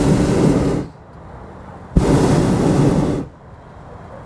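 Hot air balloon's propane burner firing: a loud blast that cuts off just under a second in, then a second blast of just over a second starting about two seconds in.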